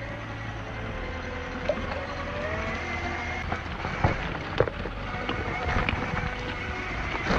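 Axial SCX6 Honcho RC rock crawler driving: a thin electric motor and gear whine that rises and falls with the throttle, with the tyres clattering over loose rocks and a few sharp knocks, the loudest about four seconds in.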